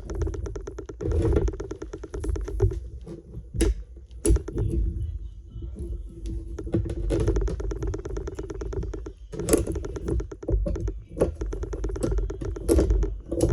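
Snap ring pliers clicking and scraping against a rusted, stuck snap ring in a front steering knuckle, with several sharp metal knocks in between.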